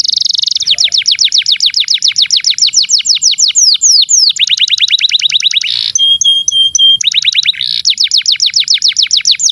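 Canary singing a long, fast song of rolling trills: runs of rapid falling notes, changing pace and pitch from one run to the next. A few short steady whistled notes come about six seconds in.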